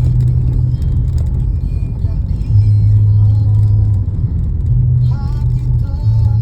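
Low, steady drone of a car's engine and road rumble heard inside the moving car, its pitch shifting a few times, with a radio playing faintly over it.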